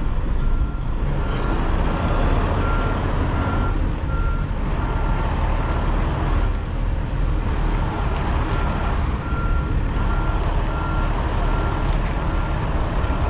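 Semi truck's diesel engine running as the rig backs up, with a reversing alarm beeping steadily, a little faster than once a second.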